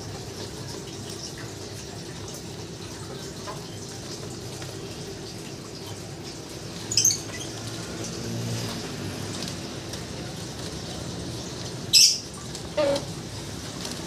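A young lovebird held in the hand gives two short, shrill squeaks about seven and twelve seconds in, over a steady background hiss of water.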